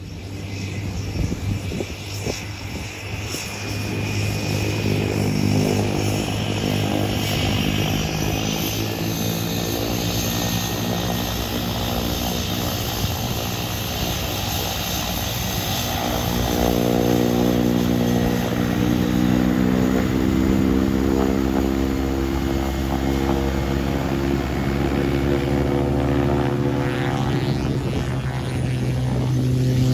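Single turboprop engine and propeller of a Cessna 208B Grand Caravan running, swelling over the first few seconds and then steady, with the propeller tone shifting in pitch partway through.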